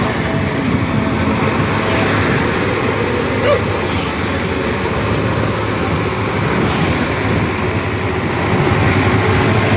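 Heavy diesel machinery engine running steadily, a dense rumble with a constant low hum.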